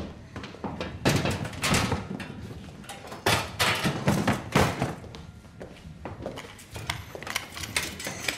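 A run of irregular knocks and thuds, thickest in the first half, then a quieter spell and a few more near the end.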